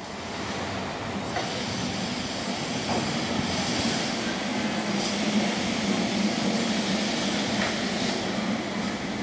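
Electric street tram running on its rails as it approaches, a steady running hum with a few faint clicks from the wheels and track.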